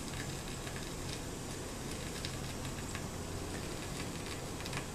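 Vintage Newcomb 1625M tube record player with the stylus riding the lead-in groove of a worn record: steady surface hiss and low mains hum from the amplifier and speaker, with a few faint clicks.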